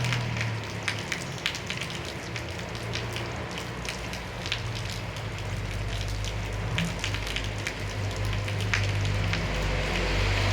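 Steady rain falling, with many close drops landing as sharp ticks, over the low, steady rumble of a Toyota Bandeirante engine running, which grows louder in the second half.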